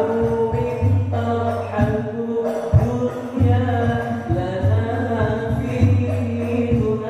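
Hadrah Al-Banjari group chanting a sholawat in unison through a PA, young male voices with long ornamented lines, over repeated low drum beats.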